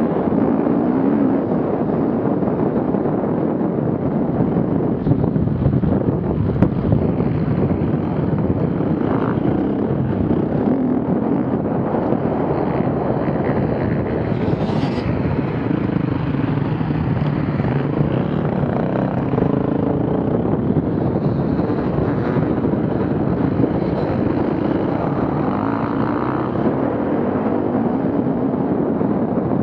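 Off-road vehicle engines running under load, their pitch rising and falling with the throttle.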